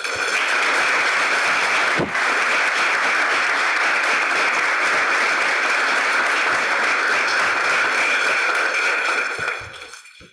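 Audience applauding: a dense, steady clapping that starts right away, holds for about nine seconds and dies away near the end.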